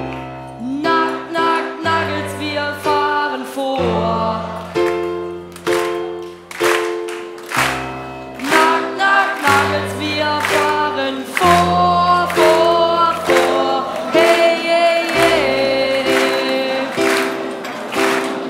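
Electronic keyboard playing a bouncy accompaniment: bass notes that change every couple of seconds under chords struck about twice a second, with a wavering melody line over them.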